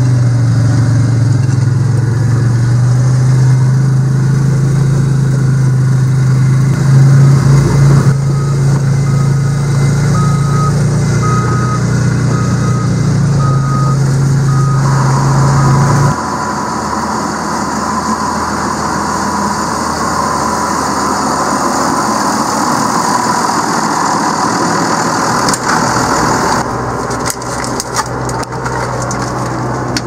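A vehicle's engine running steadily, heard from inside the cab as a loud low drone, with a faint beep repeating about once a second for several seconds midway. About halfway through it cuts to a quieter, different steady engine hum.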